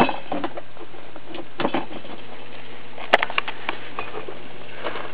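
Water from a freshly switched-on small submersible pump dripping and spraying out of low-pressure mister nozzles onto expanded clay pebbles: a steady patter with a low hum underneath. A few sharp clicks stand out, the loudest about three seconds in.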